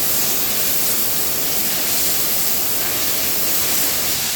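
High-pressure water jets from a Kärcher HD 14/13 Cage Food pressure washer's spray bar, spraying in a steady, even hiss.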